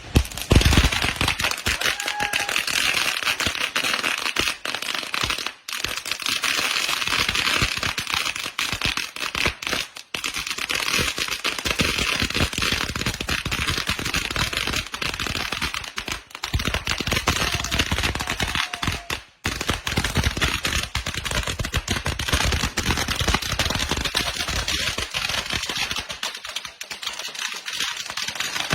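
A string of firecrackers going off in a rapid, continuous crackle of bangs, broken by a few short pauses.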